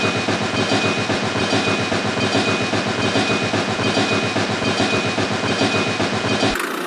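A small motor running with a rapid, even clatter and a steady high whine, cutting off abruptly near the end.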